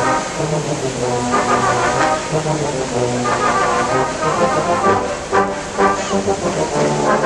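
Brass band playing a tune, held notes changing pitch every half second or so.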